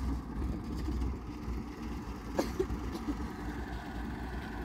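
Truck engine running at a low, steady rumble as the truck reverses, with a single sharp click about halfway through.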